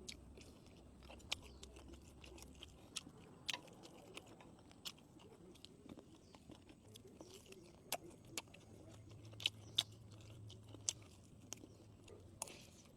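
A person chewing food close to the microphone, with many scattered sharp clicks and small crunches of biting.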